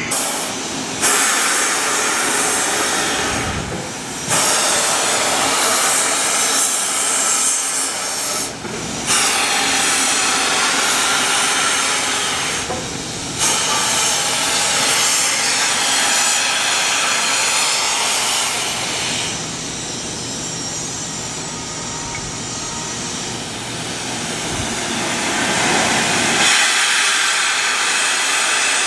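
Steam locomotive, a Durango & Silverton K-36 2-8-2, venting steam with a loud hiss. The hiss cuts off and starts again abruptly about four times in the first half, then runs on more steadily.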